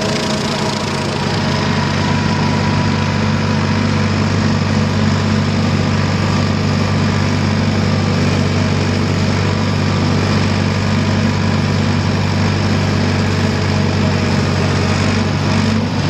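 Ford diesel tractor engine running at a steady speed while driving a rear PTO finish mower cutting grass.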